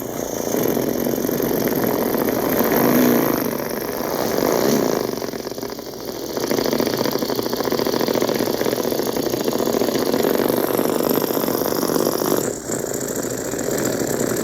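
A person's mouth imitation of a motorcycle engine: a continuous buzzing drone that swells a few times in the first five seconds, like revs, with the breaths edited out so it never pauses. It is played back through a speaker.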